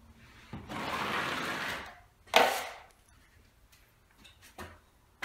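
A 14-inch drywall taping knife scraping across a painted popcorn ceiling in one long pull of about a second and a half, spreading a thick skim coat of joint compound. A sharp clack follows, then a couple of faint knocks near the end.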